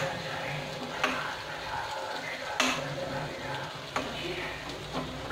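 Potato and spice masala sizzling in oil in a metal kadai while a metal spoon stirs it. The spoon scrapes and knocks against the pan four times, loudest about two and a half seconds in.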